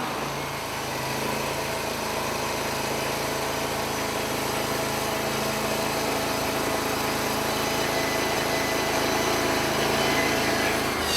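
Norwood LumberMate Pro MX34 portable band sawmill running steadily, its engine driving the band blade through a cut.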